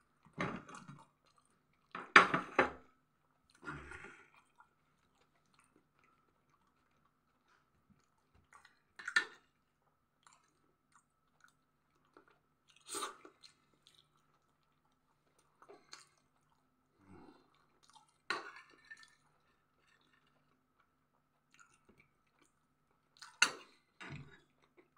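A person chewing food close to the microphone, with a few clinks of a metal spoon on a ceramic plate, in short separate bursts with quiet between; the loudest is about two seconds in. A faint steady hum runs underneath.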